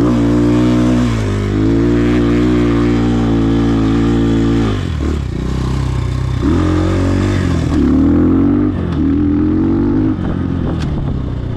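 Trailmaster TM33 dirt bike's 233cc single-cylinder four-stroke engine pulling hard up a steep grass hill. About five seconds in the throttle comes off as the bike crests. It then revs up again in two short surges and eases off near the end.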